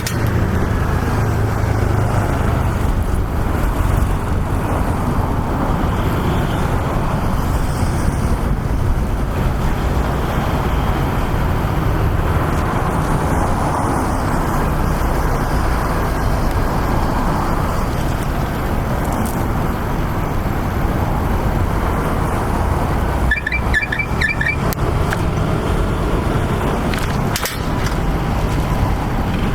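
Steady city road traffic noise: vehicle engines and tyres with a constant low rumble. About 23 seconds in comes a brief high pulsing beep lasting just over a second.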